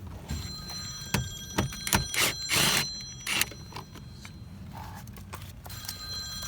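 Hand work on a car door's interior trim: a string of sharp clicks and short scraping noises, loudest around two to three seconds in, over a faint steady high tone.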